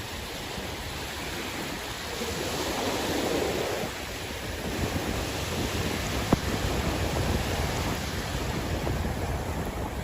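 Sea waves washing in steadily, one wave surging louder about two seconds in, with wind buffeting the microphone. A single sharp click a little past halfway.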